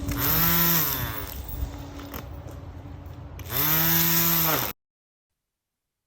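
Petrol grass trimmer engine idling and revved up twice, its pitch rising and falling back each time. The sound cuts off abruptly near the end.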